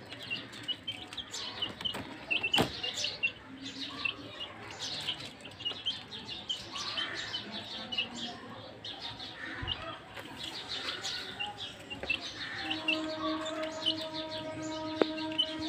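A group of young chicks peeping constantly, with many short, high peeps overlapping one another. About three-quarters of the way through, a steady droning tone sets in and holds to the end.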